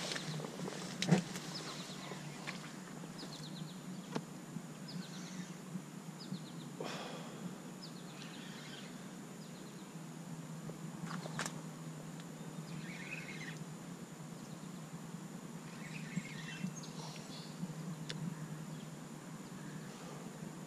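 Steady low background hum with scattered faint bird chirps and a few sharp clicks, the loudest about a second in.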